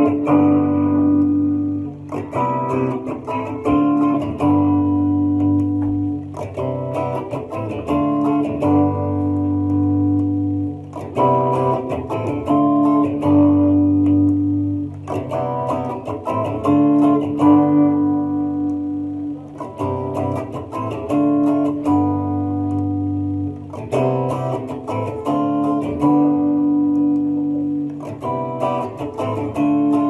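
Electric guitar with high-output hot-rail humbucker pickups playing a short riff over and over, about every two seconds: a quick burst of picked notes, then held notes ringing. The pickup selection changes between passes, from full humbuckers to split single coils, to show off the different tones.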